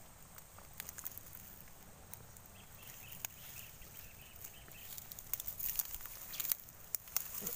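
Faint scattered clicks and rustles from handling a homemade blue PVC air gun (tiksay), growing thicker in the last couple of seconds.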